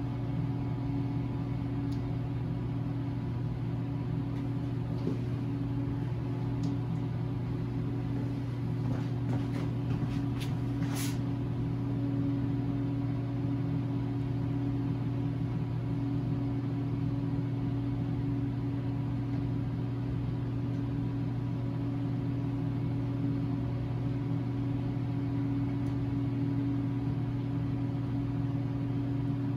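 Steady low mechanical hum, even in level throughout, with a few light clicks about ten seconds in.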